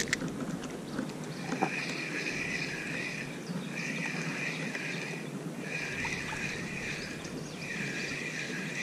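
Spinning reel being cranked in short runs during a lure retrieve: a wavering gear whine, about one run every two seconds with brief pauses between, over steady water noise. A sharp click comes right at the start.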